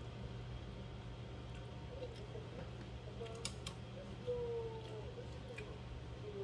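Thin metal chopsticks clicking against each other and the pot as noodles are stirred and lifted for eating, with a few sharp clicks about three and a half seconds in. A steady low hum runs underneath.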